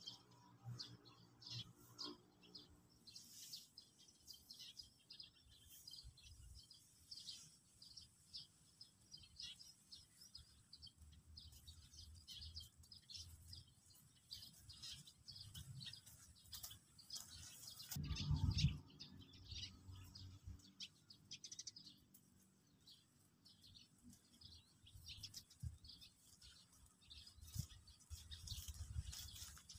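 Small birds chirping, many short high chirps repeating throughout. A brief low rumble stands out about two-thirds of the way through.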